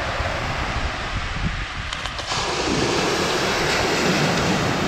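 Steady wash of small surf breaking on the beach, with a low rumble of wind on the microphone.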